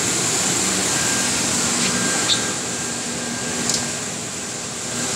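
Steady hiss and hum of workshop fans and blowers running. A low hum tone comes in for a few seconds in the middle, and there are two light clicks as battery plate groups are handled in a group inserting machine.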